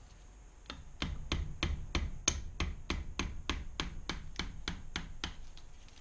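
Rubber-headed mallet tapping repeatedly on a tool held against a barrel bolt of a Kawasaki KLR 650 engine, a steady run of light taps about three a second, to shock a tight bolt loose.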